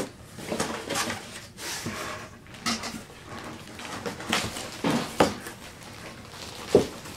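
Cardboard packaging being handled: a cardboard insert shifted and lifted out of a shipping box, with irregular knocks, scrapes and rustles, and plastic wrap crinkling near the end. A sharp knock comes right at the start and another shortly before the end.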